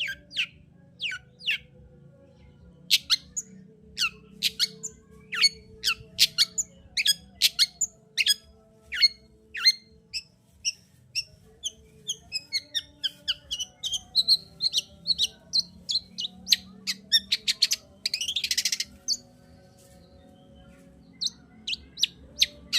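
Long-tailed shrike (cendet) in full song: a fast series of sharp, falling chirps and whistled notes, with a harsh rattling burst about 18 seconds in. It pauses briefly, then resumes near the end.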